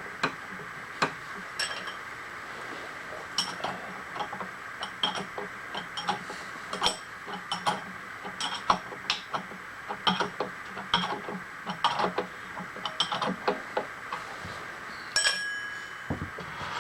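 Metal tools and parts clinking and knocking against metal: irregular sharp clicks, some with a short high ring, over a steady machine-shop hum.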